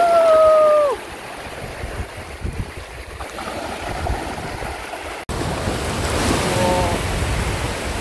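Small waves washing in over shallow sand around bare feet, a steady rush of shallow surf. At the very start a person's voice gives a short held exclamation lasting about a second, the loudest sound here.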